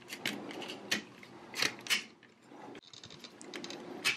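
Hard plastic parts of a Transformers combiner toy clicking and knocking as the upper body is pressed onto the leg figures: several separate sharp clicks with light handling rustle between them.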